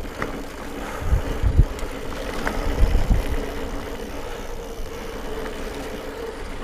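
Mountain bike descending a dirt trail: wind rushing over the microphone and tyres rolling on dirt, with a few low thumps as the bike hits bumps about a second in and again around three seconds.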